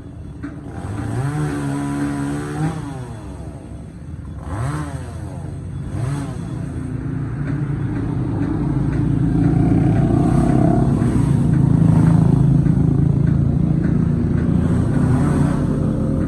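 Two-stroke chainsaw revved up and down in short bursts, then held at high revs for several seconds.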